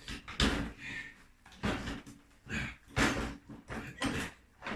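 Irregular knocks and clunks, about five in all, of hand tools working on a stuck engine part.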